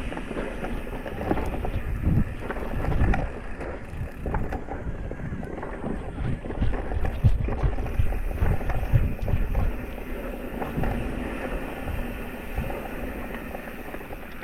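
Electric mountain bike riding over a rough trail: tyres rolling and the bike rattling with many small knocks, with wind buffeting the microphone.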